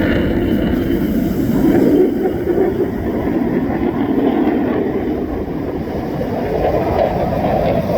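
Jet noise from US Navy EA-18G Growlers, their twin GE F414 turbofans making a steady, loud, low rushing sound that swells slightly about two seconds in and again near the end.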